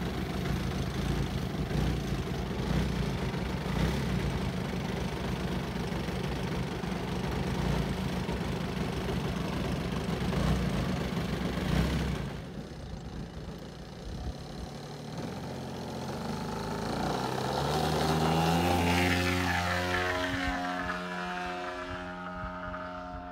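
Desert Aircraft DA-120 twin-cylinder two-stroke petrol engine and propeller of a large-scale RC aerobatic plane, running steadily on the ground. About twelve seconds in it drops away, then swells to its loudest a few seconds later as the plane flies past, its pitch falling as it moves off.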